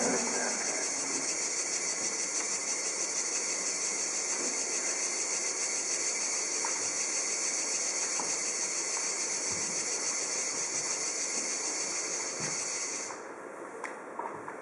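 Steady hiss that drops away suddenly about thirteen seconds in, with a few faint soft knocks.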